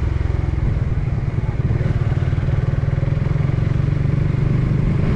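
Motorcycle engine running steadily as the bike rides along at low speed, heard from on board, with a dense low pulsing from the engine.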